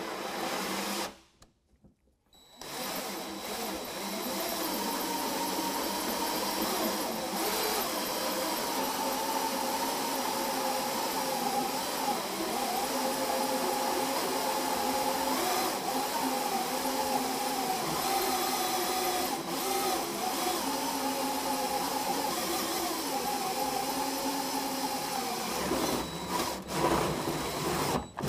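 DeWalt cordless drill driving an oiled 3.5-inch hole saw through a wooden guide board into the truck's steel bed floor: a brief run, a pause of about a second and a half, then a long steady cut with a wavering whine, stopping and starting a few times near the end.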